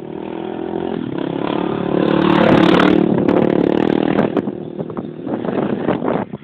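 Motorcycle engine approaching and passing close by: it grows louder to a peak about two and a half seconds in, then fades as it rides away.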